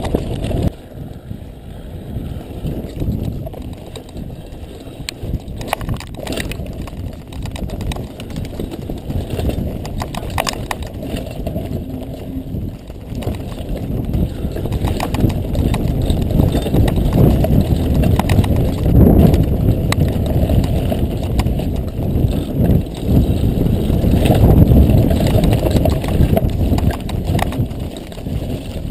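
Rattle and clatter of a 2001 Specialized Stumpjumper FSR XC mountain bike descending a bumpy dirt trail: tyres rumbling over rough ground with constant small knocks and jolts. It gets louder and rougher about halfway through.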